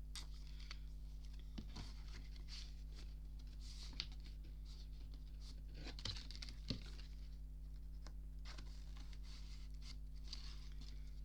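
Faint paper rustling and light taps as a CD booklet and case are handled and pages turned, in scattered soft touches every second or two.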